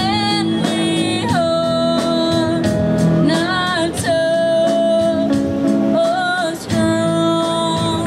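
Live rock band performance: a young female lead singer sings long held notes in phrases over guitar and a band, with a short dip between phrases about six and a half seconds in.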